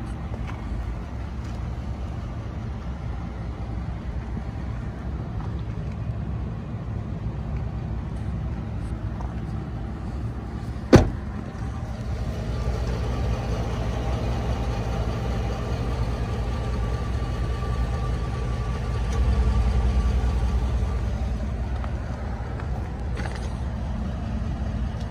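Pickup truck's engine idling steadily, with the crew cab's rear door shut once about halfway through in a single loud bang.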